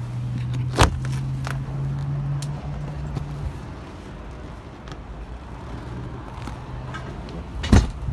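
Two sharp knocks about seven seconds apart as a pontoon boat's hinged seat lid over an under-seat storage compartment is lifted open and then let down shut. A low steady hum runs underneath, fading out about halfway through.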